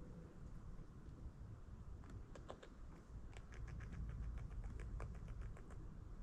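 An irregular run of small crisp clicks and ticks, several a second, starting about two seconds in and stopping just before the end, over a low steady rumble of wind.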